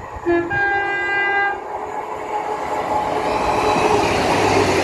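Passenger train's two-tone horn: a short low note, then a higher note held for about a second. After it comes the rumble of the train passing through the station, growing louder.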